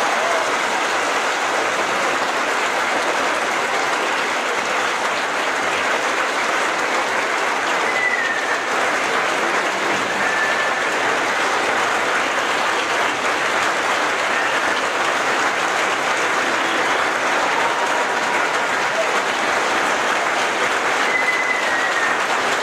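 Audience applauding steadily after the end of an orchestral piece, a dense even clapping, with a few brief high whistle-like tones above it.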